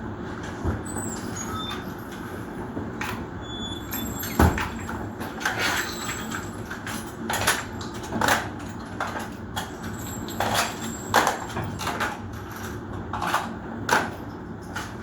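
Irregular sharp cracks of gunfire on a shooting range, about a dozen spread out unevenly, the loudest about four and a half seconds in, over a steady low rumble.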